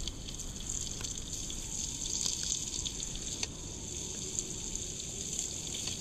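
Vegetables sizzling in a frying pan over a campfire: a steady hiss, with a few sharp pops and crackles.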